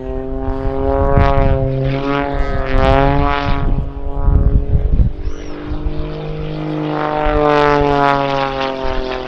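Pitts Special aerobatic biplane's six-cylinder Lycoming 540 engine and propeller, flying a display. The note swells twice, its pitch bending up and down as the aircraft manoeuvres.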